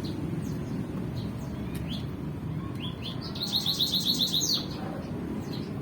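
Caged birds chirping: scattered short chirps, then a fast run of about ten high chirps around the middle, the loudest part, over a steady low background rumble.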